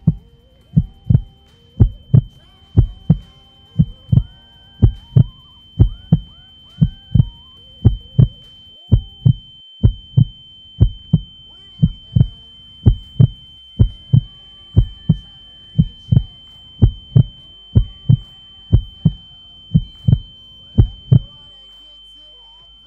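A heartbeat sound: paired low thumps, lub-dub, a little more than once a second, over a steady high tone and faint gliding synth tones. The beats stop near the end, leaving a low hum.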